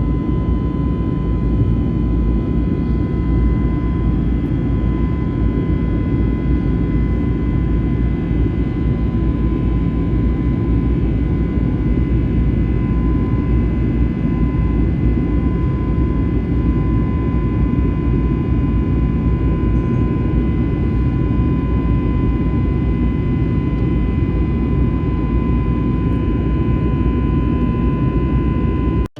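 Steady engine and airflow noise of an Airbus A321neo heard inside the cabin, a constant low rumble with a faint high whine held on one pitch.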